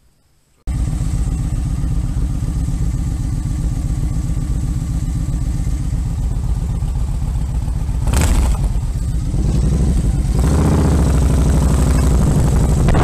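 Cruiser motorcycle engine running at low speed as it pulls away down a street, heard from a camera mounted on the bike; it starts abruptly under a second in. A brief burst of noise comes about eight seconds in, and near the end the engine and wind noise grow louder as the bike speeds up.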